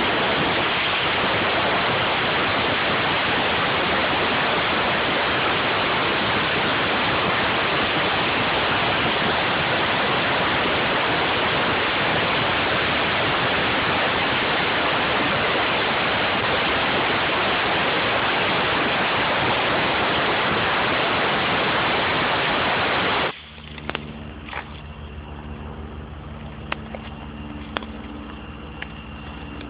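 Air spade blasting compressed air into the soil around a tree's base to loosen it and expose the root collar: a loud, steady hiss that cuts off suddenly about 23 seconds in. After it stops, a steady low hum and a few light clicks remain.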